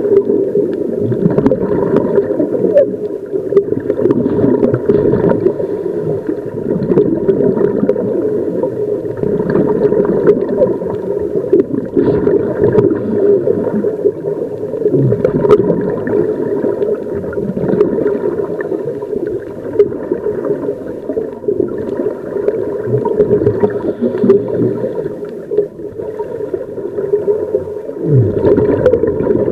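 Muffled underwater sound through a camera housing: scuba divers' exhaled air bubbles from their regulators bubbling and rumbling continuously, with a faint steady hum underneath.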